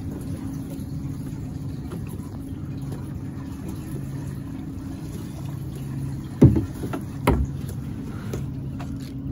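Outboard motor idling with a steady low hum. Two sharp knocks land about a second apart, a little over six seconds in.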